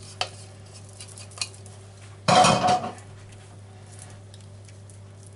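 Kitchen handling sounds: light clicks as ground hazelnuts are shaken from a small plastic chopper cup into a bowl of sauce, then a louder clatter of about half a second, the cup and utensil knocking against the bowl, a little after two seconds in.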